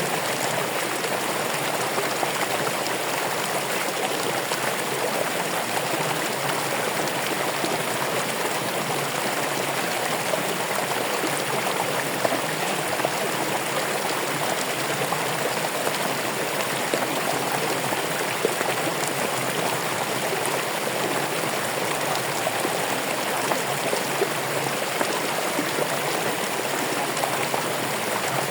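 Running water flowing steadily: an even, unbroken rush like a stream, with faint small splashes here and there.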